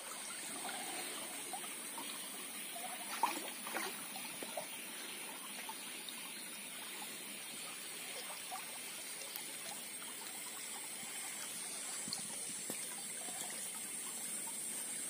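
Shallow stream water trickling steadily over stones, with a sharp click about three seconds in and a few fainter ones.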